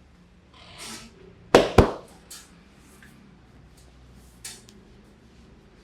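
Two sharp hand slaps about a quarter second apart, about a second and a half in, during a head massage, followed by lighter pats. A brief rubbing swish of hands on skin comes just before them.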